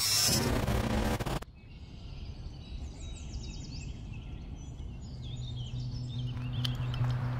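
Songbirds chirping and whistling in trees over a quiet outdoor background, after a loud burst of noise that cuts off sharply about a second and a half in. A low steady hum comes in about five seconds in.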